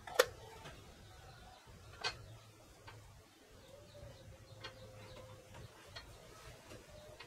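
The plastic lid of a Mini DV tape rewinder snaps shut with one sharp click, followed by a second, softer click about two seconds later and a few faint taps as the unit is handled and turned over.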